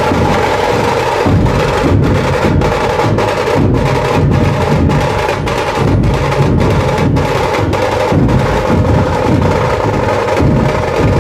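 Dhol-tasha ensemble drumming: fast tasha rolls over heavy dhol beats, with strong strokes evenly spaced a little under two a second.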